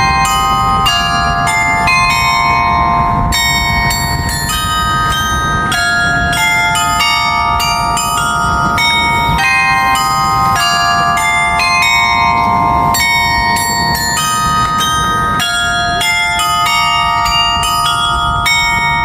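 A glockenspiel tower's 35-bell carillon playing a tune: a continuous run of struck bell notes, several sounding together and each ringing on as the next is struck.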